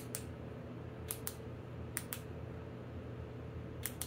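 Sharp plastic clicks of the handheld push-button switch on an LED pod light wiring harness, pressed in quick pairs about once a second while cycling the lights' modes.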